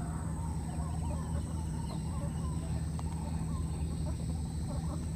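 Steady low hum with a thin, steady high whine and faint, scattered bird calls.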